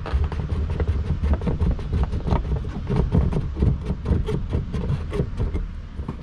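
Irregular knocks and clicks, several a second, of a plastic-coated steel Erector pipe being pushed and worked into its joints until it seats firmly, over a low rumble.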